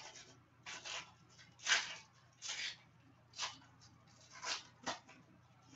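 Foil wrapper of a 2014 Panini Prestige football card pack crinkling as it is torn open and the cards are handled, in about seven short rustles.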